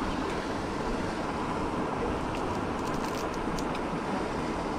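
Steady wind noise on the microphone, with a few faint ticks about halfway through.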